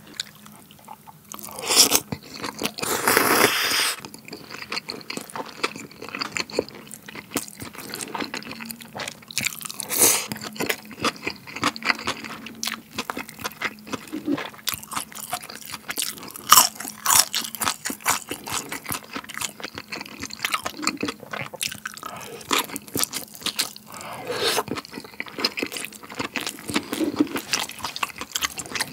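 Close-miked eating sounds: a loud slurp of chewy spicy noodles, starting about two seconds in and lasting about two seconds, then steady crunching and chewing of crisp pan-fried pork intestine (dorae-chang).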